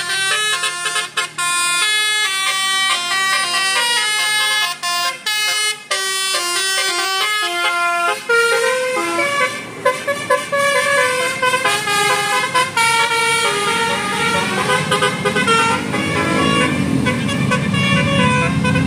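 Bus telolet horn, a multi-tone musical air horn of the Basuri type, playing a melody of quick stepping notes and then longer held notes. A bus engine's rumble grows loud near the end.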